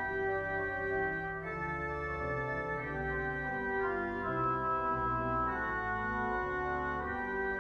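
Church organ playing the prelude in slow, sustained chords that change every second or so.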